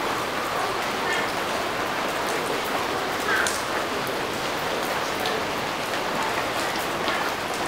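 Steady rain falling on trees and roofs, an even hiss.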